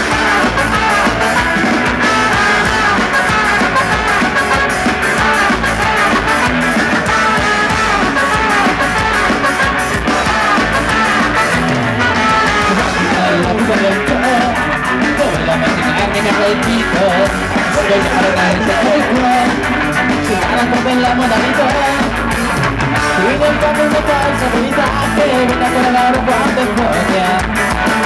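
Ska-punk band playing live and loud: electric guitars, bass guitar, and drums with steady cymbal and snare strikes, under a horn section of trumpet and saxophone.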